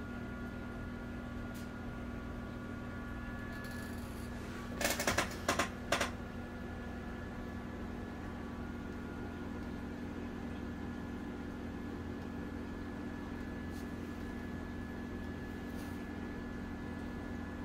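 Steady hum with a faint high whine from running aquarium equipment. A quick cluster of four or five sharp clicks or knocks comes about five seconds in.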